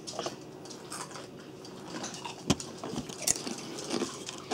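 Kettle-cooked wasabi ginger potato chips crunching as they are bitten and chewed: a handful of sharp, irregular crunches, the loudest about halfway through.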